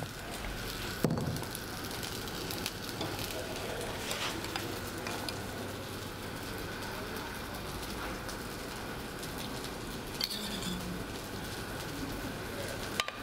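Quiet kitchen sounds: a steady low hiss with a metal spaghetti server clicking against a copper saucepan about a second in, and a few soft ticks near ten seconds as linguine is lifted out and served.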